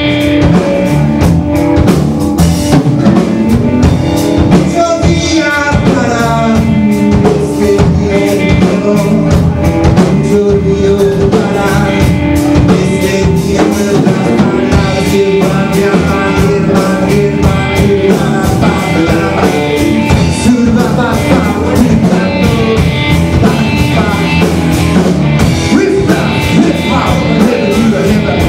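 Rock band playing live: drum kit, bass guitar and electric guitar in an instrumental blues-rock improvisation, with steady drumming throughout.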